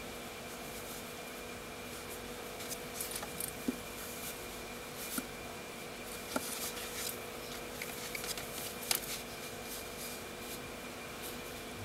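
Faint handling sounds of white cotton-gloved fingers turning a wristwatch: soft rustles and a few small, irregular clicks of the case, strap and buckle, over a steady electrical hum and hiss.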